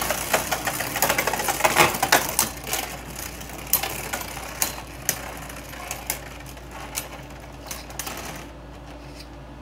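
Two Beyblade Burst spinning tops, Wonder Valtryek and Brutal Luinor, spinning in a plastic stadium and knocking against each other: a fast rattle of clicks, dense at first, thinning to scattered knocks toward the end.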